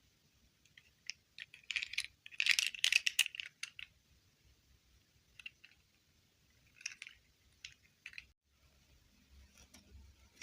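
Small plastic objects being handled: a quick flurry of clicks and crackles, then a few scattered single clicks.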